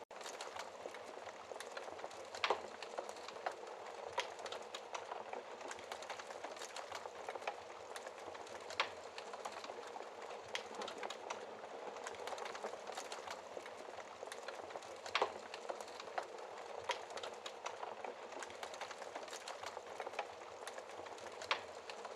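Fireplace fire crackling: a steady dense crackle with a few sharper, louder pops, about one every six seconds.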